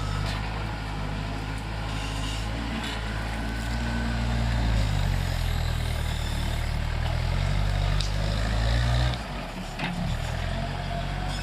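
Backhoe's diesel engine running under load, its note rising and falling, then dropping back to a lower speed about nine seconds in.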